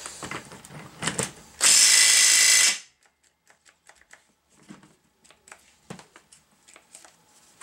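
Ryobi cordless impact wrench run in one burst of about a second, then stopping suddenly; it is loosening a nut on a Datsun truck's lower control arm fulcrum pin. Faint metallic clicks and taps follow as parts and tools are handled.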